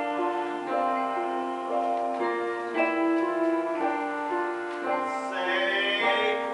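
Keyboard accompaniment for a musical number playing a run of held chords that change every second or so. A wavering higher line joins about five seconds in.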